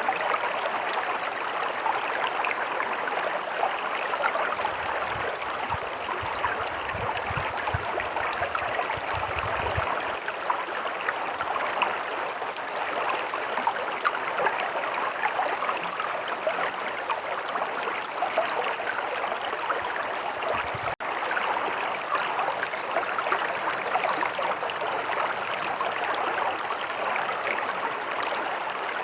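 Stream water running steadily, an even, continuous rush and gurgle.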